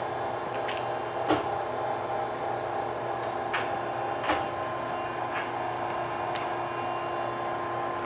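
Cincinnati-Milacron R-77 universal cylindrical grinder running its automatic pick cycle with the hydraulic table traversing: a steady machine hum with a few short, sharp clicks, the loudest about a second in and about four seconds in.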